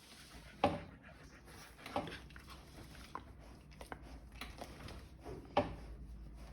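Siberian husky making a few short, sharp sounds: a loud one near the start, another about two seconds in and a third near the end, with smaller clicks between them.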